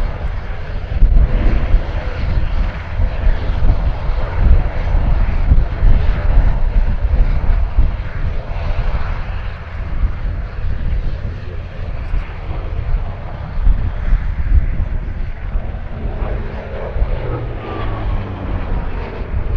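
Bristol Centaurus XVIII 18-cylinder sleeve-valve radial engine of a Hawker Fury Mk II running at power in a flypast, a heavy, deep rumble. Near the end the engine note falls in pitch as the aircraft passes.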